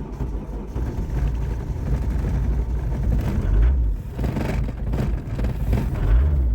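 Old diesel car engine running rough just after a cold start in frost, with a low rumble and diesel clatter; it swells louder about three and a half seconds in and again near the end.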